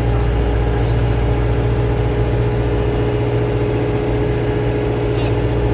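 Vehicle engine running steadily, a constant low drone with an even hum.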